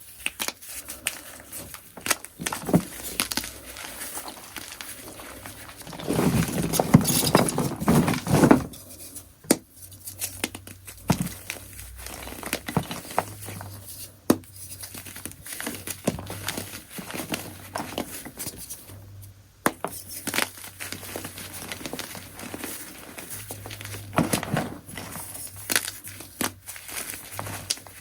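Soft, crunchy gym chalk chunks being crushed, giving irregular crunching and crackling, with a louder, denser run of crunches about six to eight seconds in.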